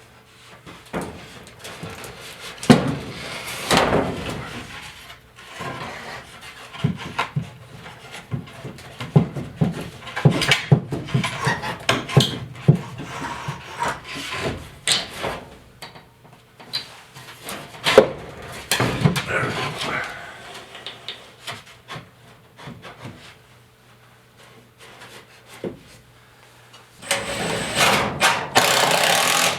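Wood and tools being worked against a wooden floor joist: scattered knocks, clicks and scraping as plywood is fitted on, with a louder continuous stretch of noise near the end.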